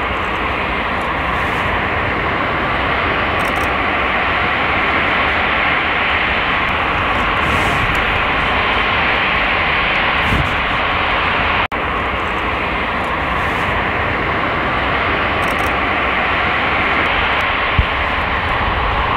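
Airbus A380 jet engines running steadily as the four-engined airliner taxis, an even, dense jet rumble and hiss.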